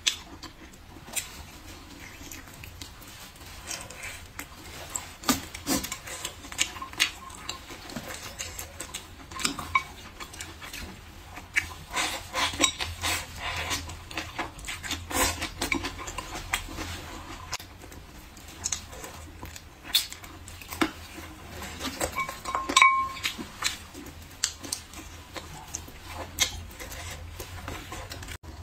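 Close-up eating sounds: chopsticks clicking and tapping against a ceramic bowl, mixed with chewing and lip-smacking on braised pork ribs and vegetables. The clicks come irregularly throughout, with a sharp knock about 23 seconds in.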